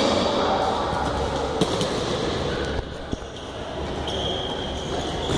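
Futsal ball being kicked and bouncing on a hard indoor court, a few sharp thuds over a steady din of players' movement and voices, echoing in a large sports hall.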